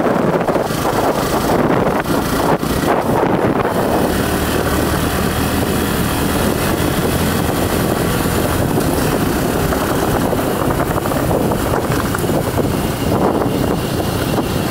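Wind rushing over the microphone of a camera on a moving motorbike, over the low steady hum of the bike's engine running at riding speed.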